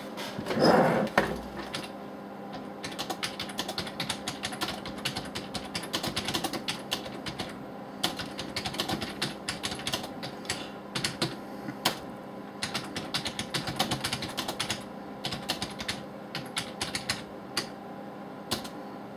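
Typing on a computer keyboard: runs of quick key clicks broken by short pauses. About half a second in there is one brief noise, louder than the typing.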